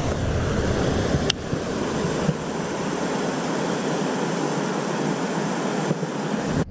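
Steady rush of water pouring over a canal spillway, with one sharp click about a second in.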